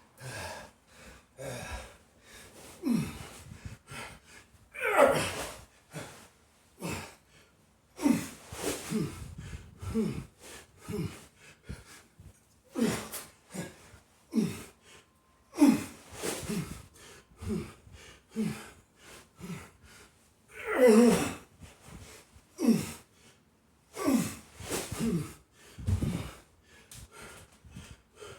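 A man breathing hard from exertion during a heavy sandbag workout: a run of forceful gasping breaths and exhales with short voiced grunts. Two breaths, about five and twenty-one seconds in, are louder than the rest.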